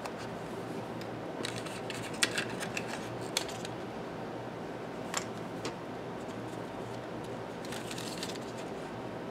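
Hard plastic clicks and light rustling from a hearing-aid charging case being opened by hand and its plastic-and-paper insert with the hearing aids being pulled out. There is a cluster of sharp clicks between two and three and a half seconds in, a single click about five seconds in, and more rustling near the end. Underneath runs the steady hum of a room heater.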